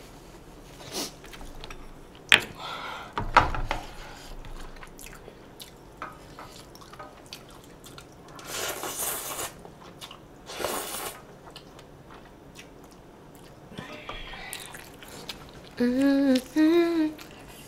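Eating sounds: slurping curry buldak noodles and sauce from a metal tray in two noisy pulls, with chewing and a few sharp clicks before them. A short hummed vocal sound near the end.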